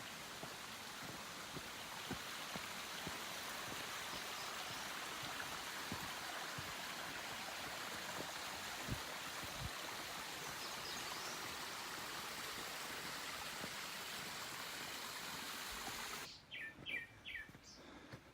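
Steady rushing of a forest stream with a few faint bird calls over it and a few soft low thuds. About sixteen seconds in the rushing cuts off abruptly, leaving a quieter background in which a bird chirps three times in quick succession.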